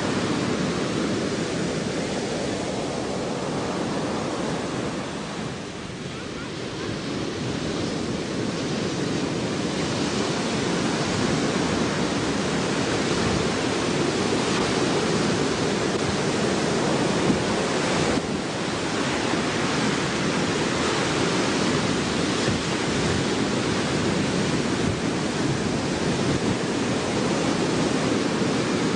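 Steady rushing of ocean surf with wind buffeting the microphone; it eases briefly about six seconds in and then builds again.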